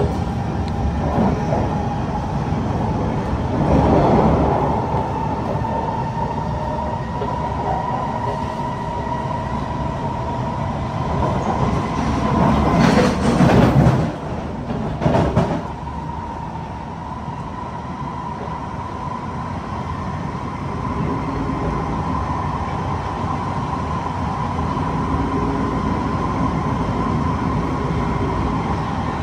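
Kawasaki C151 MRT train heard from inside the car while running between stations: a steady rumble of wheels on rail with a steady whine. Louder surges of noise come about four seconds in and again at around twelve to fifteen seconds.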